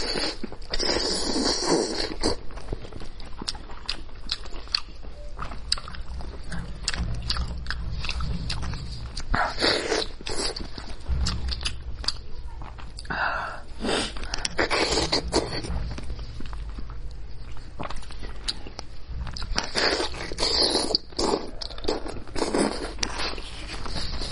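Close-miked eating sounds of spicy sheep's head: chewing, biting and smacking, with many sharp clicks and short noisy bursts.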